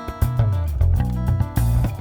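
Samba song playing: plucked guitar and a moving bass line over a steady percussive beat.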